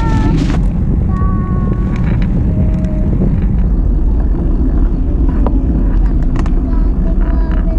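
Wind buffeting a bicycle-mounted action camera's microphone over the rumble of bike tyres rolling on rough asphalt, a steady, loud low rumble. A few brief high-pitched tones and light clicks break through it.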